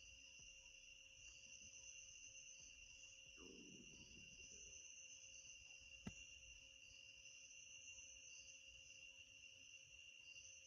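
Near silence: faint room tone with a steady high-pitched whine and one short click about six seconds in.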